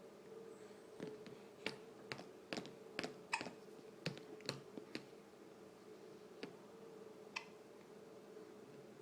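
A pet hiccupping: a run of short, sharp clicks at irregular intervals, sometimes two or three a second, bunched in the first half, with a steady low hum underneath.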